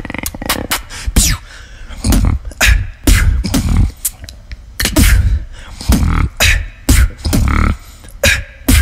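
Solo human beatboxing into a handheld microphone: sharp clicks and snare-like hits over deep, kick-drum-like booms in a quick, uneven rhythm, with a few falling swooping tones.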